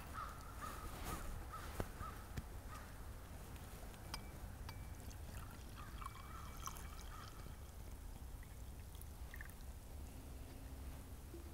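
Faint outdoor ambience with a bird calling in short repeated notes over the first few seconds and again around the middle, with a few faint clicks.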